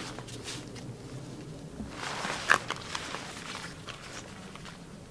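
A tarp and its cord being handled while it is rigged over a ridgeline: scattered rustles and light footsteps, busiest about halfway through, with one sharp click.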